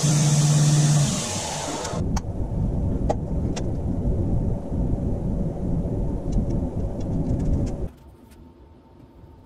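Belt grinder running with a steady hum and a high grinding hiss; the motor hum cuts out about a second in and the hiss stops a second later. Then an uneven low rumble with a few light clicks as metal parts are handled, ending suddenly near the end.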